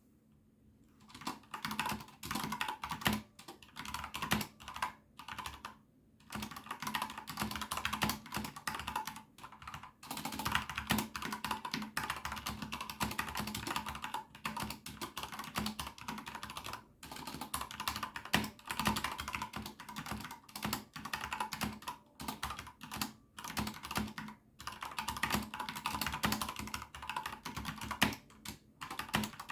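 Steady, fast typing on a Corsair K70 RGB PRO mechanical keyboard with Cherry MX Red linear switches. It starts about a second in, with a few brief pauses between bursts of keystrokes.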